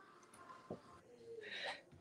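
Quiet room tone with a soft knock, then a short breathy exhale, the effort breath of someone doing a push-up.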